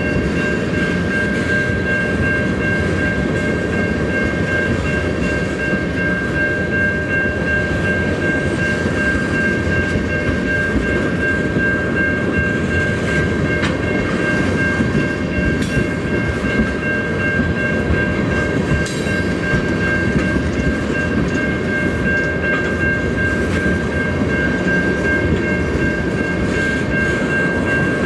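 Freight train of tank cars rolling past, a steady loud rumble of wheels on rail, with a steady high ringing tone over it.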